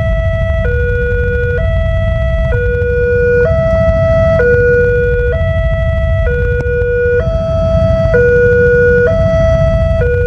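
Railway level-crossing warning siren sounding its electronic two-tone alarm, a higher and a lower tone alternating about once a second, over a steady low rumble.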